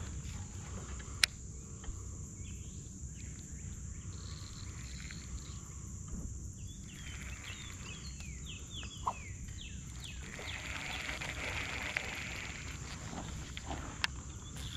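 Outdoor wildlife sounds: short animal chirps over a steady high hum and a low rumble, with a sharp click about a second in.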